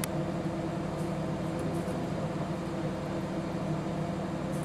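Steady droning hum of a passenger train standing still, its diesel machinery running at idle with several steady low tones, and one faint click at the start.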